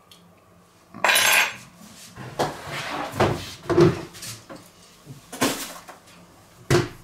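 Crockery and cutlery clattering: a run of sharp knocks and scrapes of plates and metal utensils, starting about a second in, with the longest scrape near the start.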